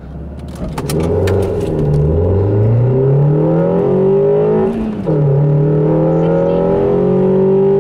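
Audi A2's swapped-in 1.6 MPI four-cylinder petrol engine accelerating hard from a standstill, heard from inside the cabin: the revs climb steadily, drop at an upshift about five seconds in, then climb again more slowly. It is loud, with the middle silencer and resonator deleted and a zero-resistance air filter fitted.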